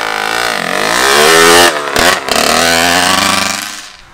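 Kawasaki KX85 two-stroke dirt bike revving as it pulls away, its engine note rising and falling several times and fading out near the end.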